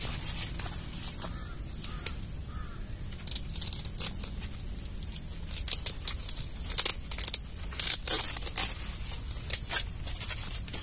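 Crisp rustling and sharp snapping of sweet corn leaves and husks as a young ear is worked loose and snapped off the stalk by hand. The crackles come in a scattered run, loudest between about six and nine seconds in.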